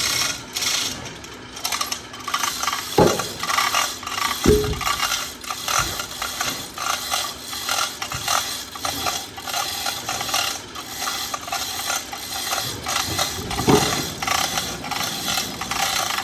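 Wood debarking machine running with a fast, uneven mechanical clatter, and three heavy knocks: one about three seconds in, one at four and a half seconds, and one near the end.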